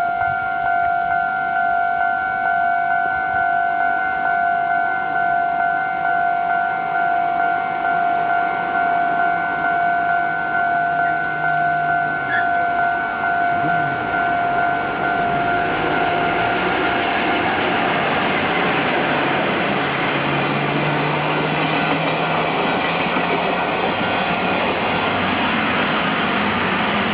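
A Japanese level-crossing warning bell dings steadily in a fast repeating pattern. About halfway through, a locomotive-hauled sleeper express train arrives and passes over the crossing, and its rushing rumble and rattle of wheels on rails drowns out the bell.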